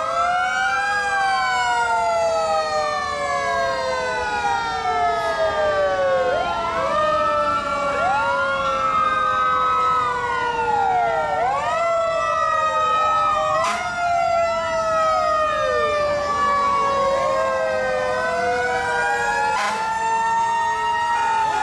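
Several fire engine sirens wailing at once, overlapping and out of step, each rising and falling in pitch; some climb quickly and sink away slowly.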